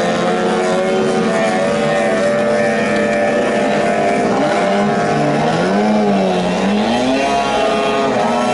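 15 hp outboard motors of small racing boats running flat out, more than one engine at once. One engine's pitch dips and rises again about halfway through while the others hold steady.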